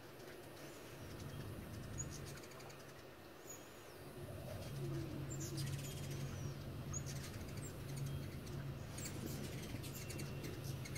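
Ruby-throated hummingbirds' wings humming as they hover and dart around nectar feeders, the hum swelling and fading as birds come and go and growing louder about halfway through. Scattered high, thin chips and twitters break in over the hum.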